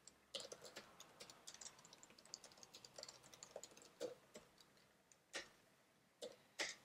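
Faint typing on a computer keyboard: a quick run of soft key clicks, then a few separate, slightly louder keystrokes over the last three seconds.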